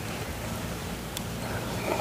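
Steady low background rumble with soft eating sounds: a faint mouth click about a second in, and a spoon touching a ceramic bowl near the end.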